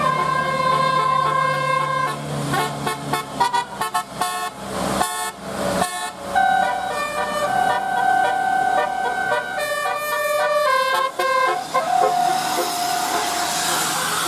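Indonesian bus 'telolet' horn, a multi-trumpet musical air horn, playing a tune: held notes that step between pitches, broken twice by rapid stuttering runs of short notes, and ending on one long held note over a rising hiss.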